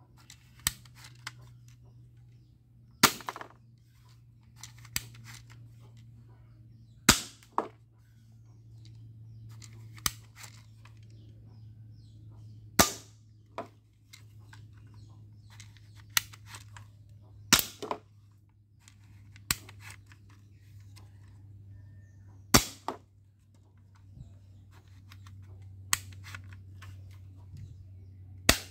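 Plastic toy BB pistol being fired, a sharp snap every two to four seconds, with quieter plastic clicks from cocking and handling in between. A low steady hum runs underneath.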